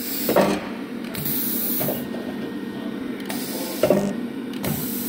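PEI spot welding machine running under test: a steady machine hum with bursts of hissing that switch on and off, and two sharp cracks from welds firing, about half a second in and again near four seconds in, the second throwing a spark.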